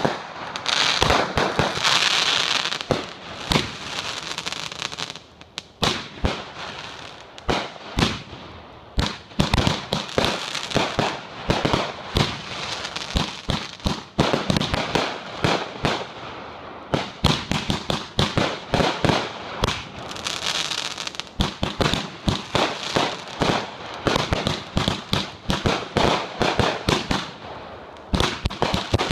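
Aerial fireworks going off in rapid succession: shells launching and bursting with dozens of sharp bangs and crackle. A hissing spray of sparks runs under the bangs near the start and again about two-thirds of the way through.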